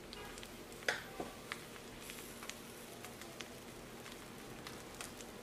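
Spatula stirring and fluffing cooked jollof rice in a large metal pot: soft scraping of rice with a few sharp knocks of the spatula against the pot, the loudest about a second in.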